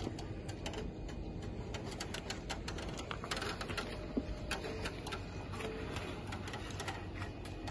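Faint, irregular crackling clicks over a low rumble: the creaking and crackling in a Tesla Model 3 that the driver cannot explain and is asking other owners about.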